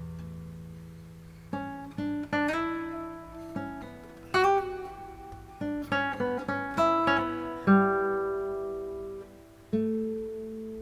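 Background music: acoustic guitar, single notes plucked one after another, each ringing and fading, with a few notes left to ring out longer near the end.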